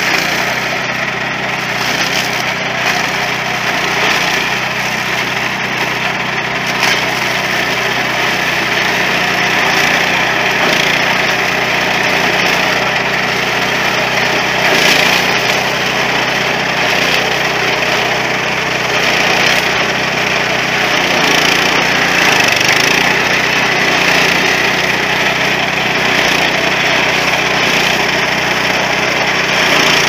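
Walk-behind mini corn combine harvester running in the field: its small engine holds a steady note under the constant noise of maize stalks being fed in and snapped as ears are stripped into the hopper.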